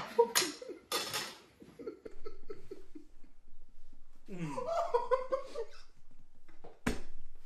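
People laughing and giggling, with breathy gasps at the start and then short, repeated laughing sounds. A sharp click near the end.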